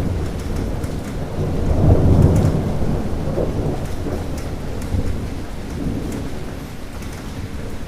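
Thunder rumbling during steady rain, swelling to its loudest about two seconds in and then slowly dying away, with the rain hissing throughout.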